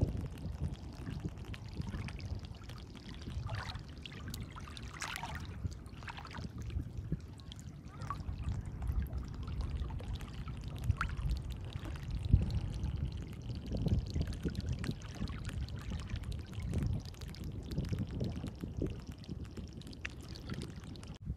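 Shallow water lapping and trickling at the shore's edge, over a steady low rumble.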